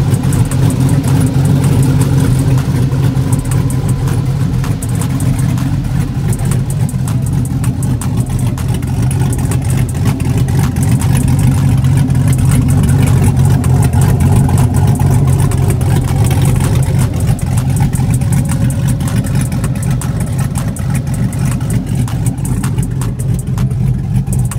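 Car engine idling steadily, a loud, even low drone with no clear revs.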